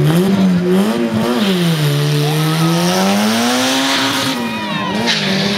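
Toyota AE86 Corolla drag car's engine revving up and down twice at the start line, with a short high squeal about four seconds in.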